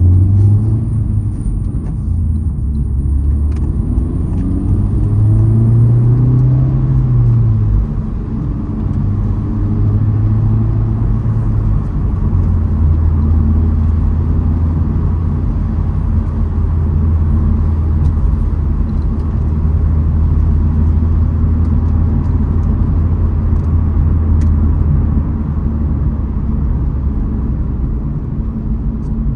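Honda Civic Type R (FL5) being driven: a steady low engine drone and road noise, with the engine note rising and falling once about five to eight seconds in.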